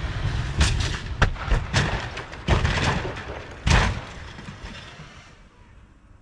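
A car rolling over on grass in a rollover crash test: a run of heavy crashes and thuds, about seven, as the body strikes the ground over the first four seconds, the loudest near four seconds in. A noisy scraping tail then fades away.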